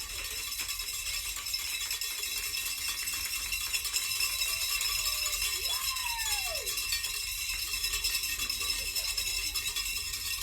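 Continuous shaken rattling, as of hand rattles or noisemakers, with a single short tone rising and falling about six seconds in.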